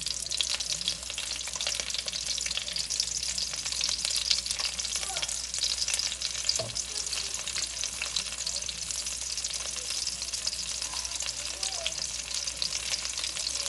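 Battered oyster pancakes frying in oil in a pan: a steady, dense crackling sizzle.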